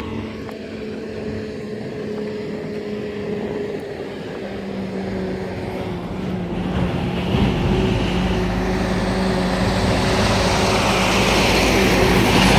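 A steady low engine hum, with a vehicle approaching and growing louder from about halfway through.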